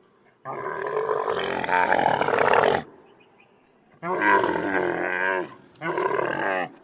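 Three long, loud calls from a large animal, separated by short pauses; the first lasts over two seconds.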